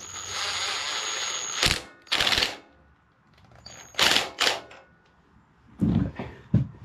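Cordless driver run on the valve spring of a small Tecumseh OHV engine head: one run of about a second and a half with a high whine, a sharp click, then two short rattling bursts, and a few dull metal knocks near the end.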